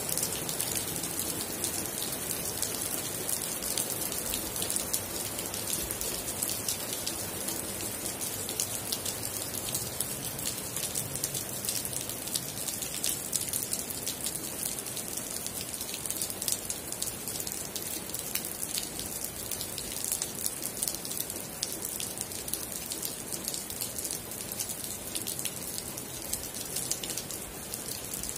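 Steady rain falling, with many close drops ticking sharply over an even hiss.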